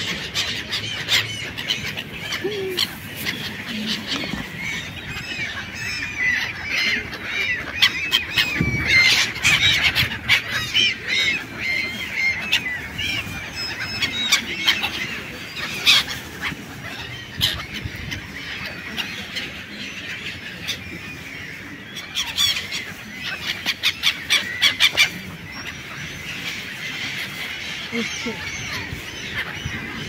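A flock of gulls calling, many short overlapping squealing calls that thicken in the first half, as the birds crowd in for thrown bread. A few sharp knocks stand out among the calls.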